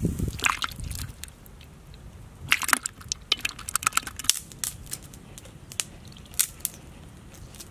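Mud-coated catfish and eels squirming in a bucket of mud, giving an irregular run of sharp wet clicks and crackles. A heavy low thump sounds at the very start.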